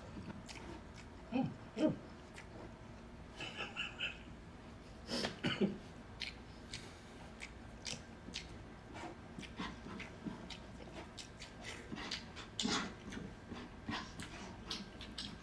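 Eating sounds: chewing, with utensils clicking against plates. A few short low-pitched sounds stand out, about a second and a half in, around five and a half seconds and near the end.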